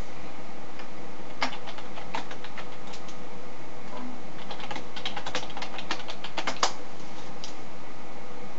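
Computer keyboard typing: a few key clicks, then a quick run of keystrokes ending in one louder key press as a short chat message is typed and sent, over a steady background hiss.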